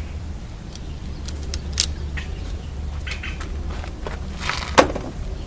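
Scattered sharp clicks and knocks of plastic and metal parts being handled as the old door latch assembly and its power door lock connector are worked free, over a steady low hum. The loudest clicks come about two seconds in and near the end.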